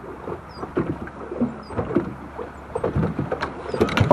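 Choppy water slapping irregularly against the hull of a boat, a string of short splashes and knocks.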